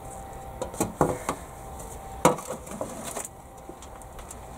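Compost being shovelled out of a wheelbarrow with a garden tool: a few scrapes and knocks of the blade in the barrow and the soil, the sharpest a little over two seconds in.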